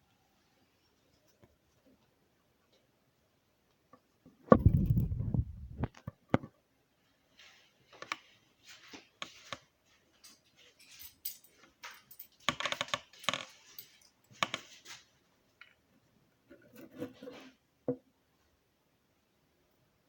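A door is struck with one heavy, low thump about four seconds in, followed by scattered clicks, metallic jingling and rattling.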